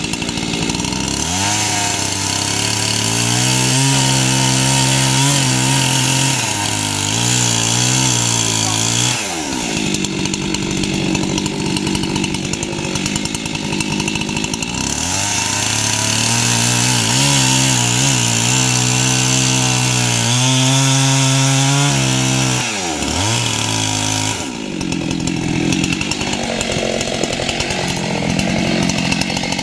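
Husqvarna two-stroke chainsaw cutting into the base of a boxelder trunk: it revs up to full throttle about a second in and cuts for about eight seconds, drops to idle, then revs for a second long cut of about nine seconds before falling back to idle near the end.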